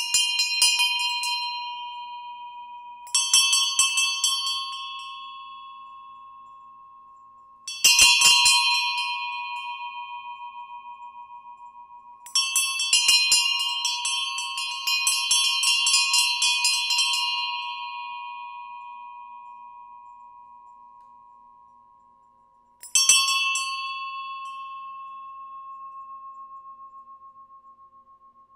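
Two small hand-cast bronze bells, one of them a new bell-bronze casting, knocked against each other about six times. Each strike sets off a long ring with a steady clear tone and a bright shimmer above it that fades sooner. Around the middle the strikes come in a quick cluster.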